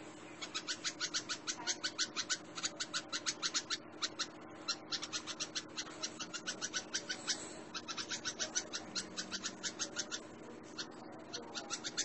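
Red-vented bulbul giving a rapid, harsh alarm chatter of about five sharp calls a second, broken by brief pauses about four and seven and a half seconds in: the bird is scolding a cat.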